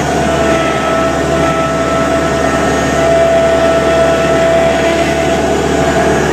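2005 Thomas 153 skid steer running steadily under load as it pushes snow with a front blade, heard from inside the cab, with a steady high whine over the engine noise.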